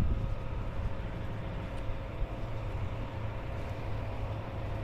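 A steady low mechanical rumble with a faint constant hum.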